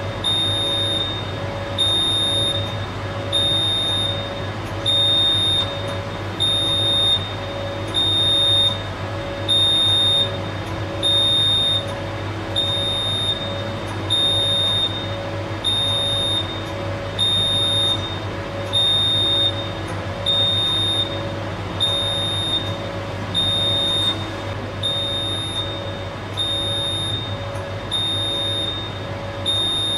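Electronic cab alarm of a locomotive simulator beeping evenly, about once every second and a half, over a steady low hum, while the train brakes under an emergency application of the RS valve.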